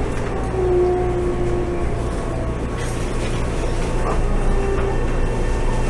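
Cabin noise of a TRA EMU700 electric multiple unit pulling out of a station at low speed: a steady low hum, with faint thin whines that come and go.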